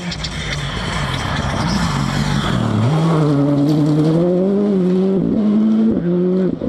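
Rally car engine approaching at speed and accelerating hard, growing steadily louder, its note climbing and breaking briefly at several gear changes, with a sharp drop near the end as it lifts off.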